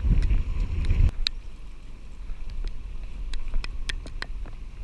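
Catamaran's engine running at low speed with a steady low hum. A buffet of wind on the microphone covers the first second, and scattered sharp ticks come through the hum.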